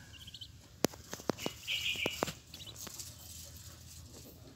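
Rustling and a handful of sharp clicks in a nest of straw and feathers as a Muscovy duck hen and her newly hatched ducklings shift about, with a few faint high peeps from the ducklings.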